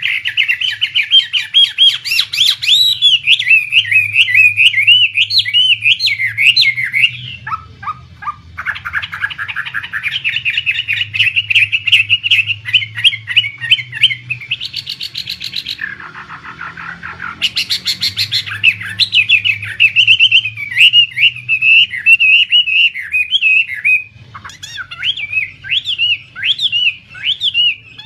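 A songbird singing loudly in long runs of fast, varied warbles and whistles, with short breaks about a third of the way in, around the middle and near the end. A faint low hum runs underneath.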